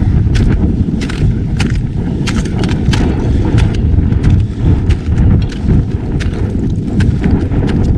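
Wind buffeting the microphone in a steady low rumble, over a quick, uneven run of sharp crunching footsteps on hard snow, about three a second.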